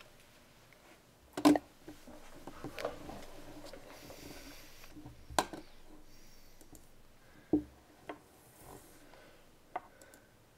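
A person sitting down at a wooden table and handling papers: several short knocks and thumps on wood, the loudest about a second and a half in, with paper and clothing rustling between them.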